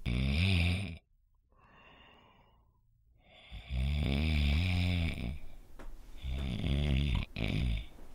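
A person snoring loudly, in a series of low, drawn-out snores. There is one short snore, a quiet gap of about two and a half seconds, then longer snores about every two seconds.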